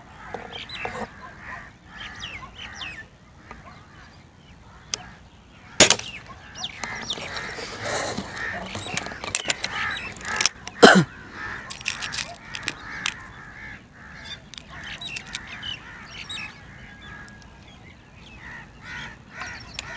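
Spring-piston air rifle firing a single sharp shot about six seconds in. About eleven seconds in comes a loud clack as the rifle is cocked for the next pellet, with smaller clicks around it. Birds are calling in the background.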